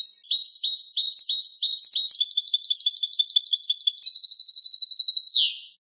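European goldfinch singing one unbroken song phrase: repeated high twittering notes that quicken about two seconds in, then a fast steady trill, ending on a falling note near the end.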